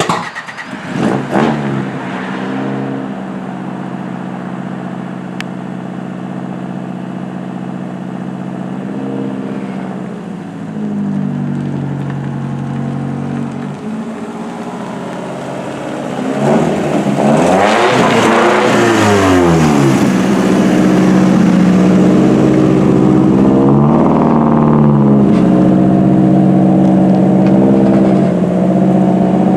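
Toyota 4A-GE 20-valve four-cylinder engine, just started, idling steadily with a couple of small throttle blips. About halfway through it is revved up and back down, then idles on more loudly, with another brief blip near the end.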